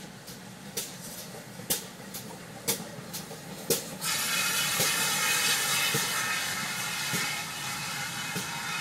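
Steam locomotive 7822, a GWR Manor class 4-6-0, working slowly toward the crossing: sharp exhaust chuffs about once a second. About four seconds in, a loud steady hiss of steam starts suddenly and carries on under the chuffs.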